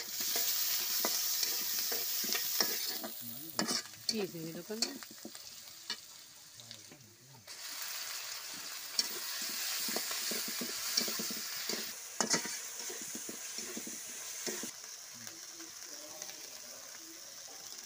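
Chopped onions sizzling in hot oil in a metal karahi, stirred with a metal spatula that scrapes and clicks against the pan. The sizzle drops off briefly about six seconds in and comes back a second or so later.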